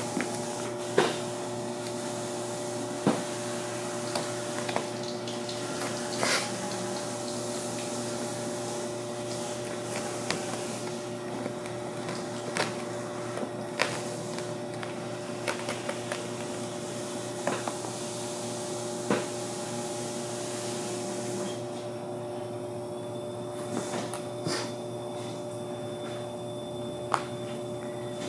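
A thick, 20-mil clear protective film is being peeled and stripped off a car's painted quarter panel, giving scattered sharp crackles and snaps of plastic. Under it runs a steady background hum and hiss, and the hiss drops away about three quarters of the way through.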